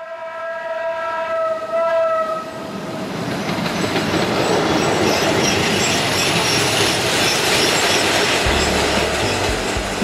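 A rail vehicle's horn gives one long blast of several tones held together, lasting about two and a half seconds. Then the rumble of the vehicle running along the track builds and stays loud.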